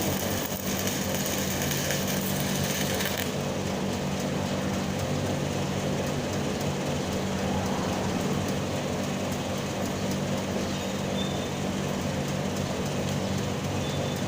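Stick welding arc crackling over a steady machine hum; the hiss of the crackle thins out about three seconds in.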